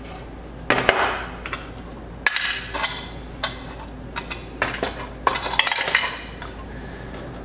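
Knocks, clicks and rattles as an empty hard-plastic power-supply case is handled and set down, followed by cable handling. The knocks come in irregular clusters, the busiest in the second half.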